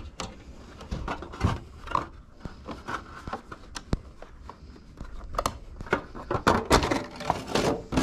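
Handling noises as a zip tie is worked free and a cardboard plate is pulled out from in front of a side-by-side's radiator: scattered clicks, rubs and knocks, busiest in the last three seconds.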